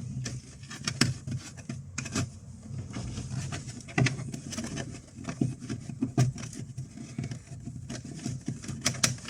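Irregular light clicks, taps and rustles of hands working wires and fittings through a hole for the switch panel, over a steady low hum.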